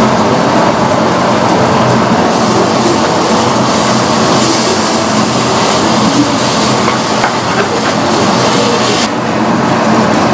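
Onion-tomato masala frying in a wok: a loud, steady sizzle with a wooden spatula stirring and scraping the pan. The sizzle's top end eases slightly about nine seconds in.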